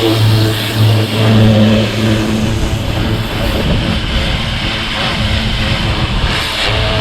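Greenworks 2100 PSI electric pressure washer running: a steady motor hum over the hiss of the water jet. The hum drops away about two and a half seconds in, leaving mostly the spray's hiss, and comes back near the end.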